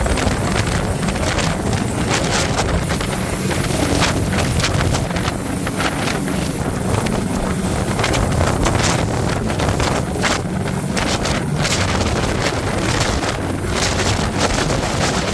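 Coastguard search-and-rescue helicopter hovering low overhead: loud, steady rotor and engine noise, with the rotor downwash buffeting the microphone in irregular gusts.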